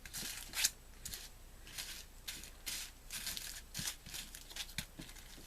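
Small plastic baggies of diamond-painting drills crinkling and rustling as they are handled, in a string of short rustles.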